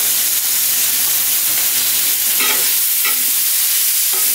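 Potato and aubergine pieces with spice pastes sizzling in hot oil in a metal kadai, with a steady frying hiss. A spatula stirs them, scraping the pan a couple of times, as the spices are fried down before water is added.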